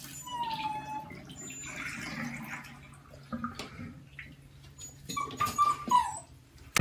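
Puppy whimpering: a short, falling whine near the start and a longer high whine about five seconds in that drops in pitch at its end.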